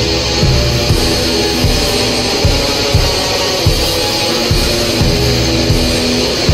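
Raw black metal: a dense wall of distorted guitar over drums, with low drum hits about every half second under sustained droning chords.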